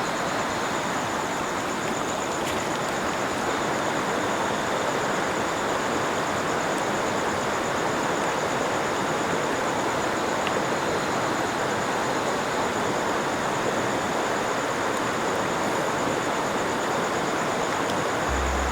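River water flowing, a steady, even rushing. A high, steady insect drone runs over it.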